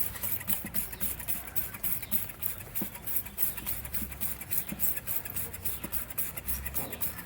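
Dry, rusty motorcycle drive chain on a Suzuki 250 clicking in a steady rhythm, about four ticks a second, as it runs round the sprockets while being sprayed with diesel to loosen the rust. The clicking is the sound of a chain left without lubrication.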